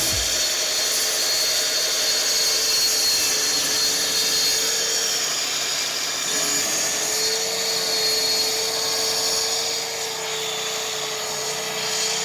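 Kreg track saw running steadily through a full sheet of plywood, a constant motor whine over the hiss of the blade cutting, stronger from about halfway through.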